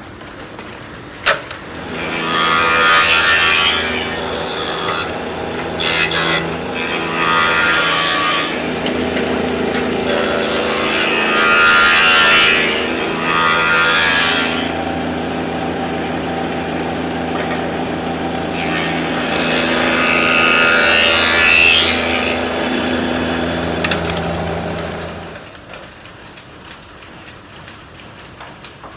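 Electric woodworking machine running with a steady hum, cutting into wood in several rushing bursts of a few seconds each. It winds down and goes much quieter near the end.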